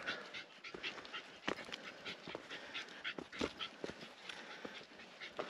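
A Shiba Inu panting while climbing a mountain trail, with irregular footstep scuffs and clicks on the rocky ground.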